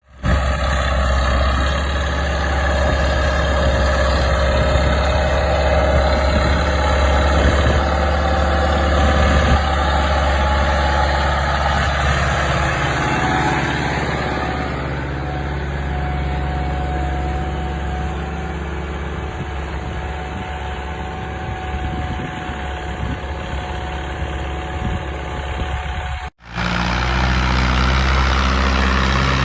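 Diesel tractor engines running steadily while pulling ploughs, with a strong low hum. The sound cuts out for an instant near the end and comes back slightly different.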